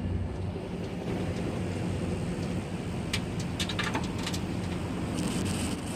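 A steady low mechanical hum, like an engine running, with a few short light clicks a little past the middle.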